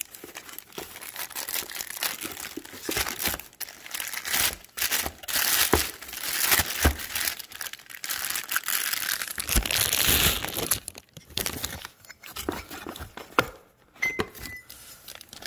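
Clear plastic wrap crinkling and tearing as it is pulled off a wheel spacer. The crinkling is dense for the first ten seconds or so, then thins to quieter scattered crackles.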